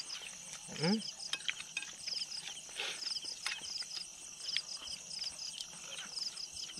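Night insects chirping in short, evenly repeated pulsed trains, with faint clicks of eating from plates and a brief voice about a second in.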